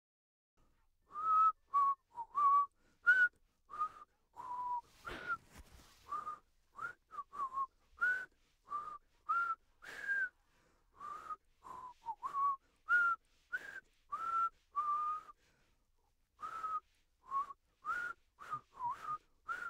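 A person whistling a long string of short, separate notes at roughly the same middle pitch, some bending slightly up or down, with uneven pauses between them and a little breath noise on each note.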